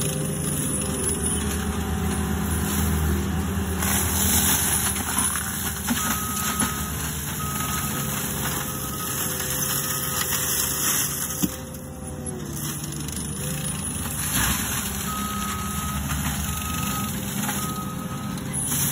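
ASV RT-135 compact track loader running a forestry mulcher head, its engine working steadily under shifting load with a grinding hiss from the mulching drum. Its back-up alarm beeps in two runs, about four beeps a little over a second apart, then three more, as the machine reverses.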